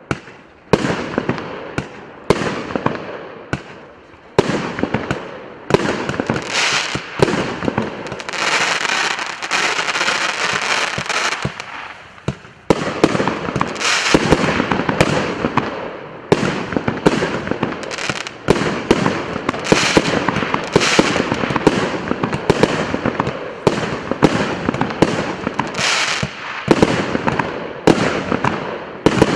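A 99-shot, 1.1-inch consumer fireworks cake (РМ650 'Флагман') firing in rapid succession, with sharp shot bangs about once or twice a second. A few seconds of dense crackling come about eight seconds in, and the shots then come faster, with crackle between them.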